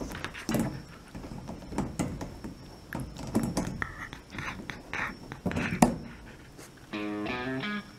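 Shiba Inu in a wire crate making short bursts of fussy vocal noise and panting, with her mouth against the bars, mixed with a few sharp clicks. Music starts about seven seconds in.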